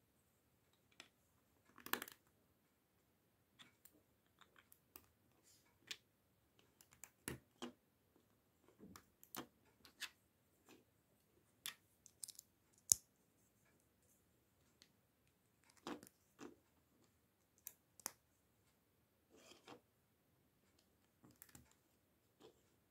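Plastic LEGO bricks being handled and pressed together on a cutting mat: irregular small clicks and light knocks, the sharpest click about thirteen seconds in.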